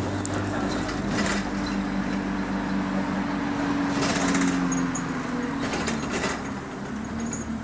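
Bus diesel engine heard from inside the saloon, idling fast with a steady droning hum that dips slightly about halfway. Short rattles come about a second in, around four seconds and around six seconds.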